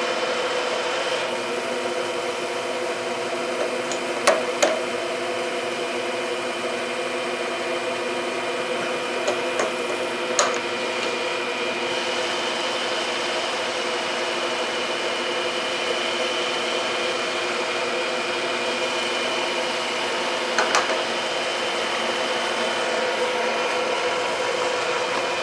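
Milling machine running steadily with a hum of several steady tones, with a few sharp clicks and ticks: a pair about four seconds in, more around ten seconds and again about twenty-one seconds in.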